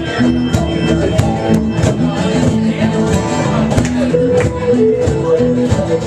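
Live band playing an instrumental passage, with plucked guitar prominent and held melodic notes over a steady rhythm.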